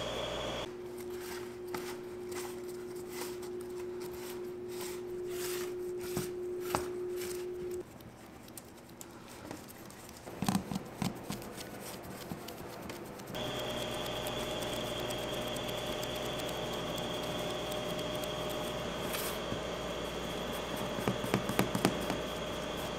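Bakery kitchen work sounds: scattered light clicks, taps and scraping from handling, over a steady machine hum. The hum changes abruptly twice, and the clicks grow more frequent near the end.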